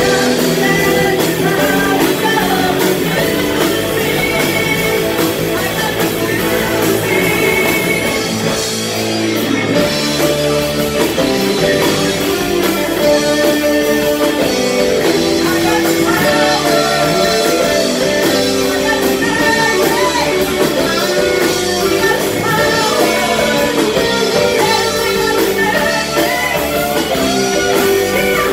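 Live rock band playing: a woman singing over electric and acoustic guitars, bass and drums.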